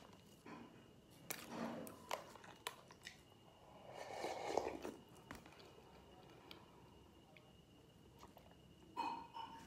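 Close-up eating sounds: wooden chopsticks and a plastic container clicking and knocking, a few soft mouth sounds, then a loud sip of soup drunk straight from the plastic container about four seconds in. A short mouth noise comes near the end.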